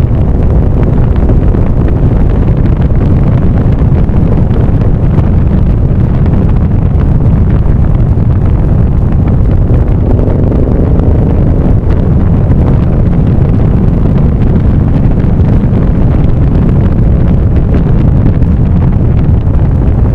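Steady, loud wind rumble buffeting the microphone of a camera on a moving vehicle, with a faint engine hum beneath it.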